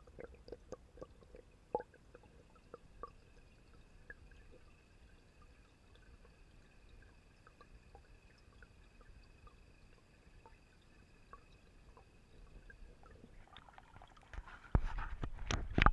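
Faint underwater sound with scattered sharp clicks in the first few seconds and a faint steady hum. Near the end comes loud splashing and water sloshing as the camera breaks out of the water.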